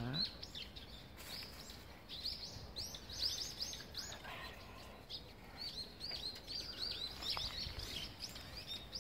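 Birds chirping: quick strings of short, high chirps over a steady outdoor background, growing busier a couple of seconds in.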